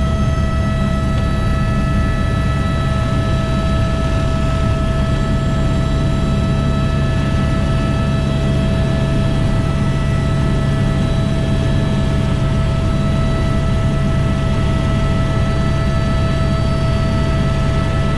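Helicopter in flight just after takeoff, heard from inside the cockpit: a steady, heavy rumble of rotor and engine with a steady whine above it.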